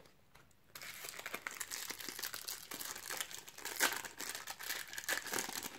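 Foil wrapper of a Panini Champions League trading-card packet crinkling as it is torn open, starting about a second in and going on as a dense crackle.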